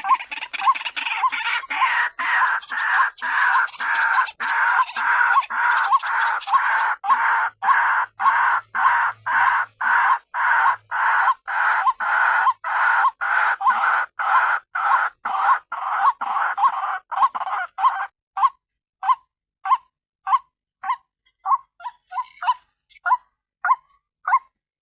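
White-breasted waterhen (ruak-ruak) lure call: a female's harsh croaking notes repeated rapidly, about two or three a second. After about 18 seconds they thin out into separate, spaced notes.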